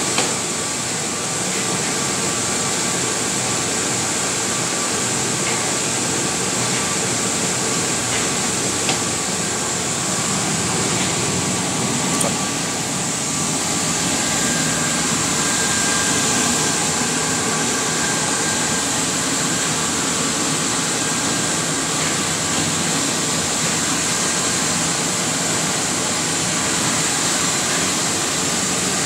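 Steady rushing of the electric cooling blower under a cast-on-strap mould table, air blowing to cool the freshly cast lead straps, with a few faint metal knocks.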